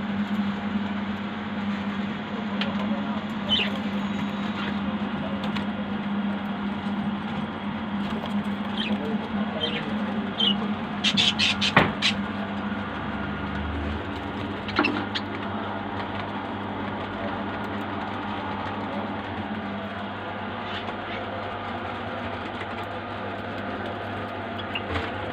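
A steady low background hum with a few short, faint bird calls scattered through it, and a brief run of sharp clicks about halfway through.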